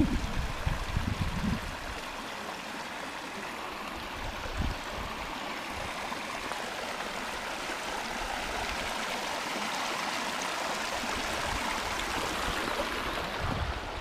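Shallow mountain stream running over gravel and stones, a steady rush of water that grows slightly louder toward the end. A few low thumps come in the first couple of seconds and once more a few seconds later.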